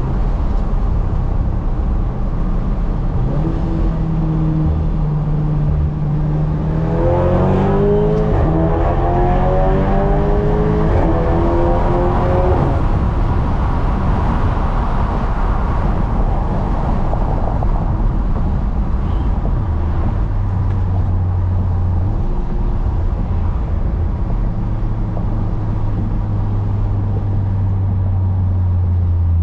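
Catless, tuned Audi S3's turbocharged four-cylinder heard from inside the cabin. It runs steadily at first; about seven seconds in it accelerates hard, rising in pitch through gear changes until about thirteen seconds. It then settles into a steady low drone as the car slows.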